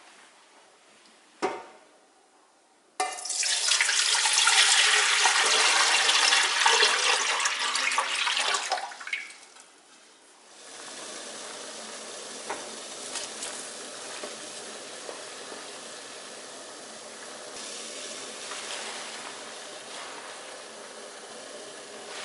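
A single knock, then water pouring into a pot as it fills for about six seconds. After that, water boiling steadily in the pot.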